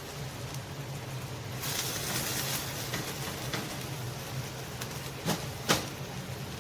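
Ground beef sizzling in a frying pan as it is stirred to brown: a steady hiss that swells for about a second, about two seconds in, with two sharp knocks near the end.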